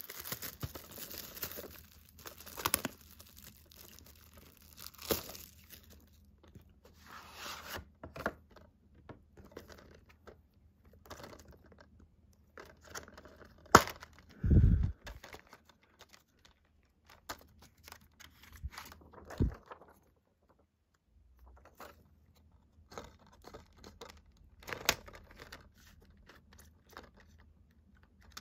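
Plastic shrink-wrap crinkling and tearing as it is stripped off a DVD box set. After that come scattered handling clicks and knocks from a clear plastic DVD case being opened and its discs handled, with one sharp click and a dull thud about halfway through.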